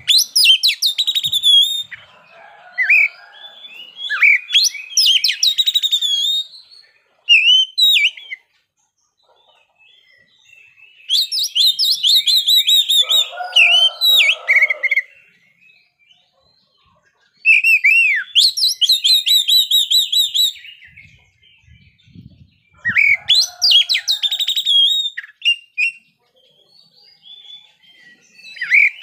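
Oriental magpie-robin (kacer) singing in about five loud bursts of rapid whistled phrases and trills, with pauses of a second or two between bursts.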